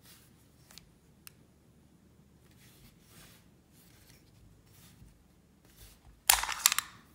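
Heckler & Koch P7 M13 pistol's magazine being released and pulled out of the grip: faint handling rustles and a couple of small ticks, then a short, loud burst of metal clicks and sliding a little over six seconds in.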